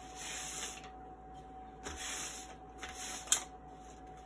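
A marker or pen dragged in three scraping strokes across a woven plastic feed sack, drawing straight guide lines, with a sharp click near the end.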